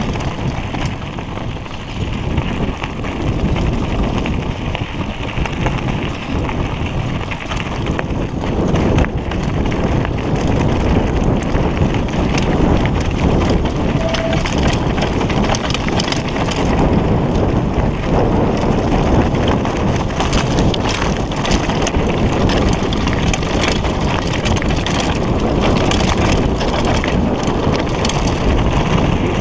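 Mountain bike riding over a loose, rocky trail: tyres crunching on stones and the bike rattling over the bumps, with steady wind rush on the camera microphone.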